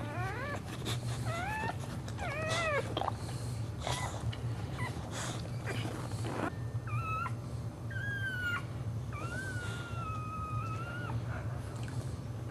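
A Boxer in labour whining: a string of short, rising whimpers at first, then a few longer, drawn-out high whines in the second half, with a steady low hum underneath.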